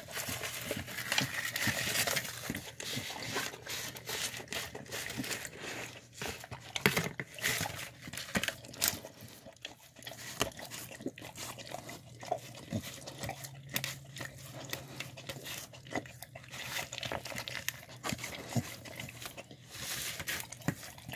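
A dog eating wet food from a plastic tub: irregular licking, lapping and chewing smacks, with its muzzle knocking against the tub.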